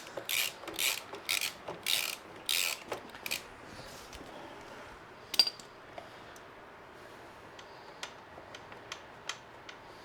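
Hand ratchet clicking in quick, even strokes, about two a second, while the rear shock's top bolt is being undone; the ratcheting stops about three seconds in, leaving a few faint clicks and one sharper click near the middle.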